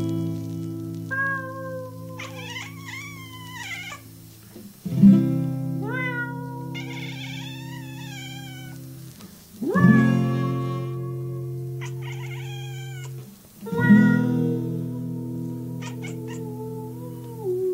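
Acoustic guitar strummed, one chord about every four seconds left ringing, while a domestic cat meows over each chord in long, wavering meows, four of them.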